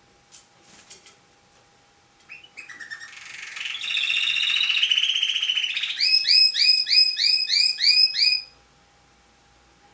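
Domestic canary singing one song phrase, starting about two seconds in. A rising trill builds into a rolling warble, then gives way to a run of loud, repeated up-sweeping notes at about four a second. The song stops abruptly about a second and a half before the end.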